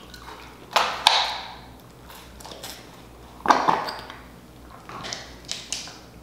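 Close-miked mouth sounds of eating: a few sharp wet smacks while chewing tamarind candy from a drink straw, then sips of a frozen mangonada through the straw.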